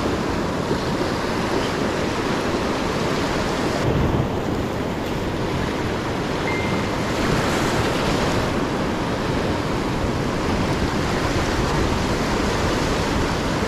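Surf washing over a shallow rock reef: a steady rush of breaking and draining waves, with some wind buffeting the microphone.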